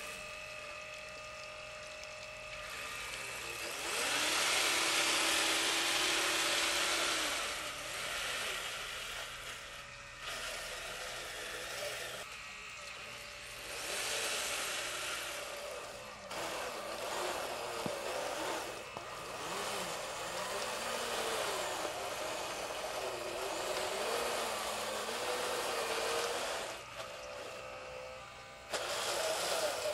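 Radio-controlled model wheel loader working in wet mud: its electric drive and hydraulic pump whine, the pitch rising and falling as it drives and works the bucket, with louder noisy stretches, the loudest about four to seven seconds in.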